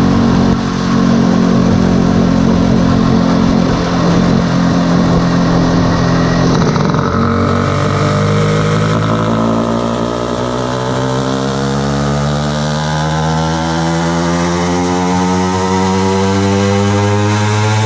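Vespa PX 200 with a BFA 306 cc two-stroke engine and a modified DSE racing exhaust running on a rolling-road dyno. It holds steady revs for about seven seconds, then the revs climb steadily and continuously through the rest of the power run.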